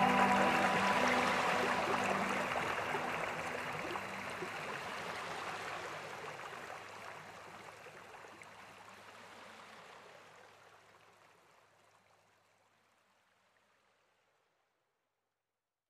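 Steady rushing noise of rain and water, with the last notes of music in the first few seconds, fading out evenly to silence about twelve seconds in.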